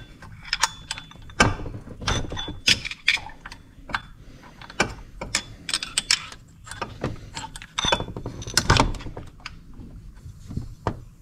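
Hand tools and metal parts clicking and clinking in irregular bursts while the bolts of a water pump pulley are undone and the pulley is taken off, with a few brief metallic rings.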